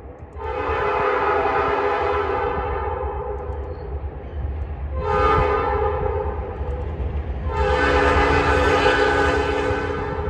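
Locomotive air horn sounding three blasts: a long one, a shorter one, then a third still sounding at the end. A low rumble from the train runs underneath.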